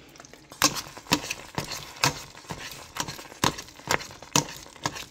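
Metal spoon stirring thick, cooked-down quince paste in a stainless steel pot: a run of irregular clacks and scrapes, about two a second, as the spoon knocks the pot and works through the sticky paste.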